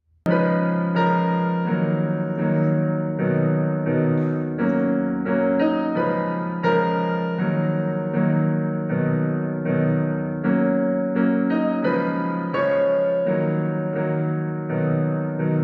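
Background music: a gentle keyboard piece of steady, piano-like notes, starting suddenly just after the beginning.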